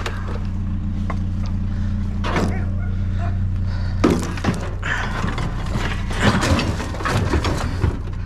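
Knocks and clatter of scrap being handled, loudest and most frequent in the second half, over the steady hum of an idling vehicle engine.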